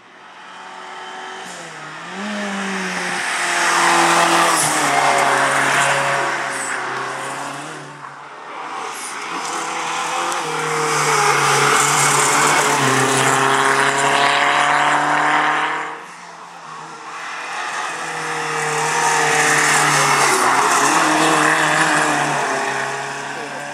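Renault 5 GT Turbo's turbocharged four-cylinder engine driven flat out up a hill-climb course, revving hard and changing gear, its pitch climbing and dropping again and again. It comes in three loud swells as the car approaches and passes, with lulls about a third and two thirds of the way through.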